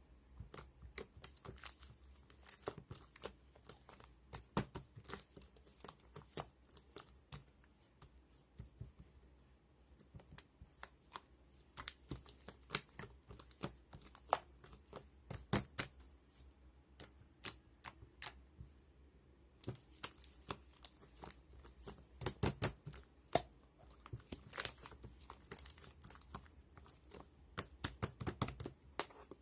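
Sky-blue marbled slime being pressed and stretched by hand, giving off irregular sticky clicks and small pops, with brief clusters of louder pops every few seconds.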